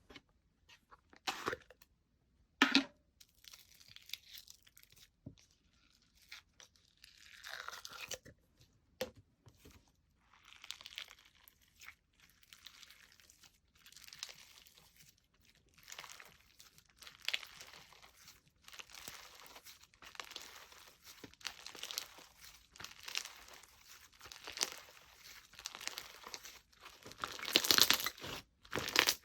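Slime being squeezed, stretched and pulled apart by hand, making irregular crunching, crackling and tearing sounds, with two sharp snaps near the start and denser, louder crackling near the end.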